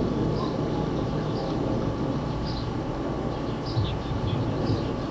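Indistinct noise of a fight crowd: a steady rumble of many voices with scattered distant shouts.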